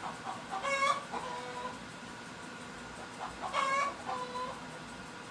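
Domestic fowl calling twice, about three seconds apart. Each call is a short wavering note followed by a flatter, lower held note.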